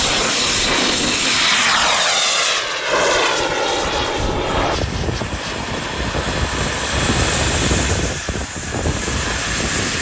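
Miniature jet turbine of a large radio-controlled model jet at full power on its take-off run: a loud rushing whine whose pitch sweeps downward. About five seconds in, the sound cuts to a steadier rush of the jet in flight.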